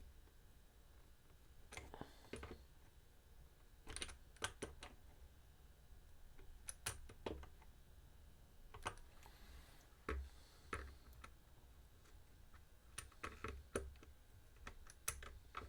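Faint, scattered clicks and taps of small metal guitar hardware being handled and fitted: potentiometers, star washers and nuts going into the guitar body, with several clicks in a row at times.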